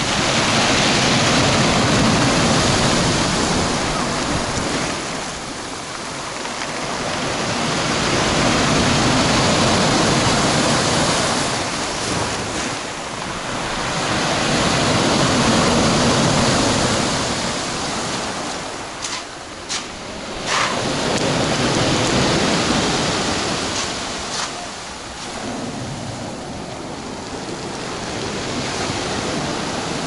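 Heavy storm surf breaking on the shore, the rush of water rising and falling about every six or seven seconds as successive waves come in.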